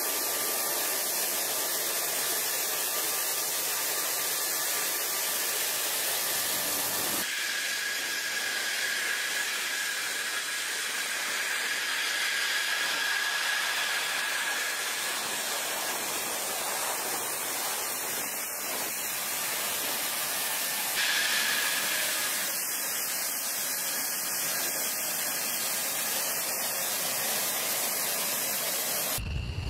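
F-16 jet engine idling on the ramp: a steady, high-pitched whine over a loud hiss. The tone shifts abruptly about seven seconds in and again about twenty seconds in.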